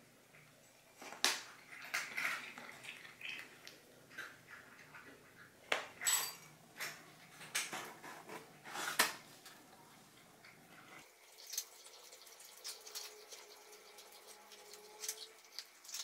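Cat crunching dry kibble from a bowl: irregular sharp crunches and clicks, softer in the last few seconds.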